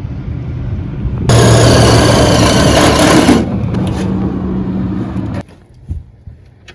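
A machine's motor running with a low hum, growing much louder and harsher about a second in for about two seconds, then easing back before cutting off suddenly; a few faint clicks follow.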